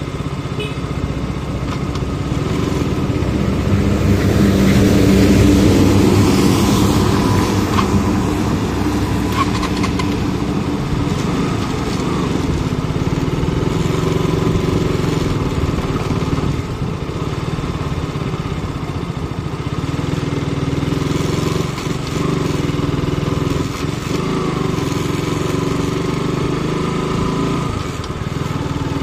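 Motorcycle engine running steadily, growing louder for a few seconds about four seconds in.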